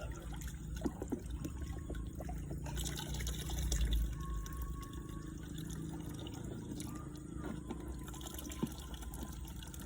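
Water sloshing and trickling with small splashes and clicks, as from gold panning in water, over a steady low rumble; the splashing is loudest about three to four seconds in.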